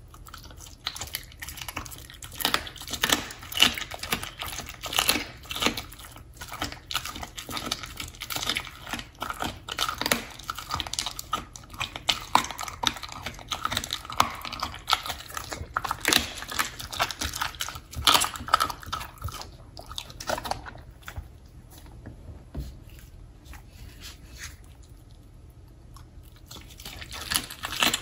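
Samoyed biting and chewing raw meat fed by hand, a run of wet, irregular crunches and clicks that goes quieter for a few seconds near the end before picking up again.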